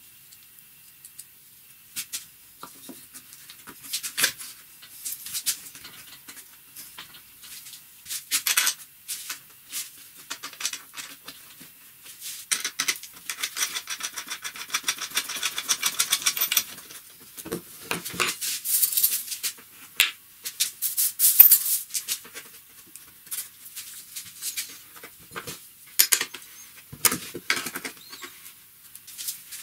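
Hand work on a wooden jig: scattered clicks, knocks and rattles of a steel bolt, nut and wrench against wood. A stretch of fast, even ticking comes about halfway through, and the loudest knocks follow a few seconds later.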